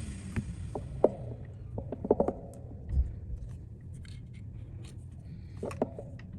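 Small clicks, taps and light scrapes of hand tools being handled on a repair bench, with a cluster of sharp taps in the first couple of seconds and a few more near the end. A steady hiss, like a fan or blower, dies away in the first second.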